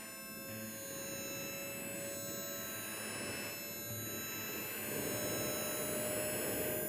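Electronic music: many sustained, sine-like synthesised tones held together, with one tone gliding slowly upward, over a noisy, wind-like wash that swells louder about five seconds in.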